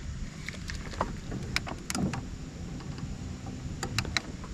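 Aluminum jon boat being steered by its bow-mounted electric trolling motor: a steady low hum and rumble, with several sharp clicks and knocks from handling gear in the boat.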